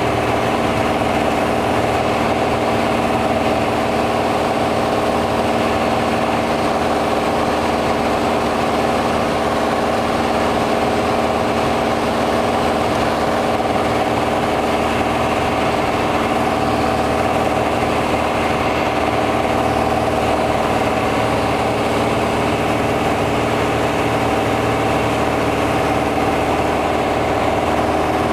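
Piper Arrow's piston engine and propeller running with a steady drone, heard from inside the cockpit on approach to landing.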